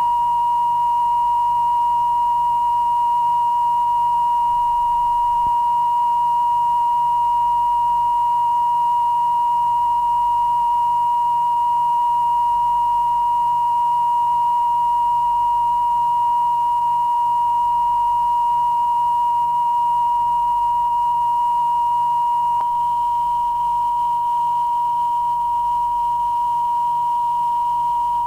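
Steady line-up test tone at about 1 kHz, a single unwavering pitch recorded on the tape with colour bars as a reference for setting audio levels. Its level dips very slightly about 23 seconds in.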